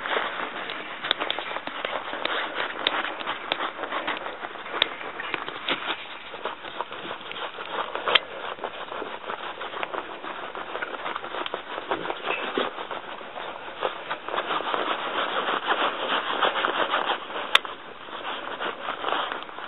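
Deck brush bristles scrubbing a Saint Bernard's coat against a concrete floor: a continuous scratchy scrubbing full of small crackles, heavier about three-quarters of the way through, with one sharp click near the end.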